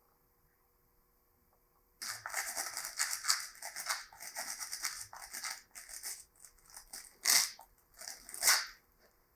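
Near silence, then from about two seconds in a run of rapid, irregular hand-worked scraping strokes on a surface, with two louder, longer strokes near the end.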